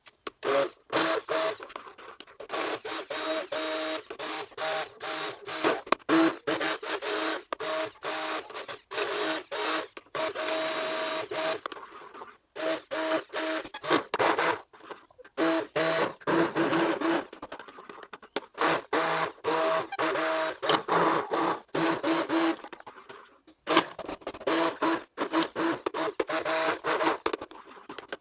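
Hand-held stick blender whirring in many short on-off bursts as it mixes a hot liquid-soap batch, played back at four times normal speed. The bursts are separated by brief gaps, with a longer pause about 12 seconds in and another near 23 seconds.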